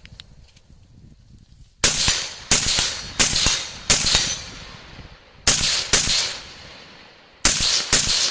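Rifle fired rapidly: a string of five shots starting about two seconds in, then two quick pairs of shots, each shot trailing off in a short echo.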